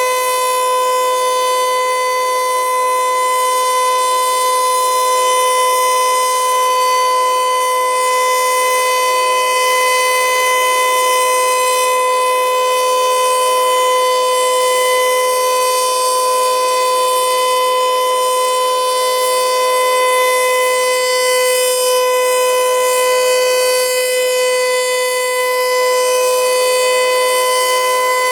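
Federal Signal Eclipse 8 electronic outdoor warning siren sounding a steady tone during a scheduled test, held at one pitch with no rise or fall and at an even, loud level.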